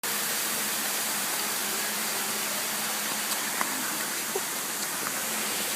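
Steady rush of a waterfall, with a few faint ticks in the middle.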